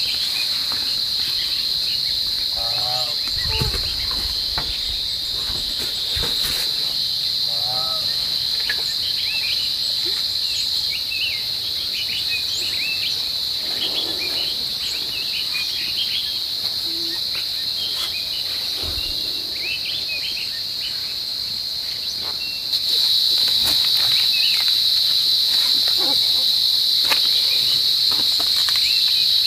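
Steady high-pitched drone of insects, with scattered short squeaks and chirps over it. The drone gets suddenly louder about three-quarters of the way through.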